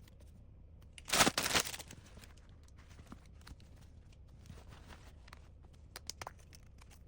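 A short rustle of crinkling packaging about a second in, then faint scattered clicks and taps of items being handled.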